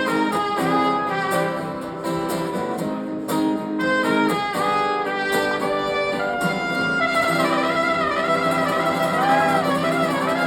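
Live band music with no singing: strummed guitar chords, joined about seven seconds in by a wavering lead melody line.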